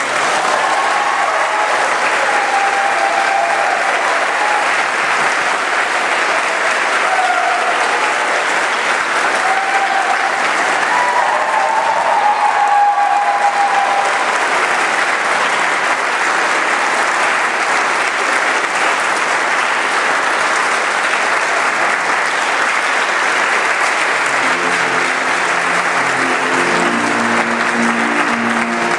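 Church congregation applauding loudly and steadily, with a few voices cheering in the first half. About 25 seconds in, recessional music starts up under the clapping.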